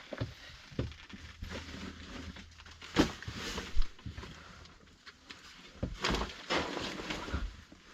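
Irregular scuffs, knocks and rustles of footsteps and handling noise, with two sharper knocks about three and four seconds in and a busier run of scuffing about six seconds in.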